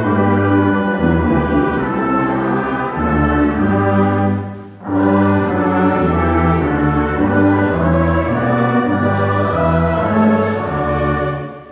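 Brass ensemble of trumpets, trombones and tuba playing slow, sustained chords with a church choir. The music breaks off briefly about five seconds in and again at the end.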